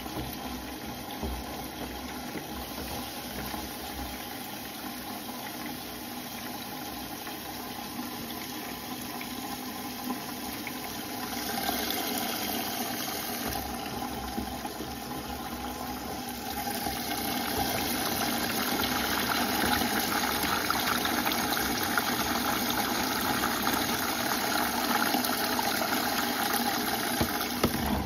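Bosch front-loading washing machine running, its drum turning the laundry through water, with a steady sound of sloshing and running water that gets louder about 12 seconds in and again about 17 seconds in. A sharp knock at the very end.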